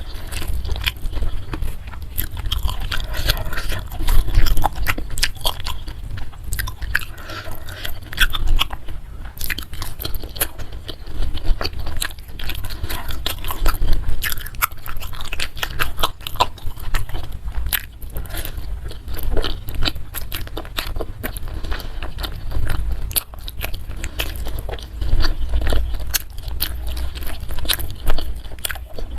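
Close-miked chewing and crunching of food, with many sharp crisp clicks all through, over a steady low rumble.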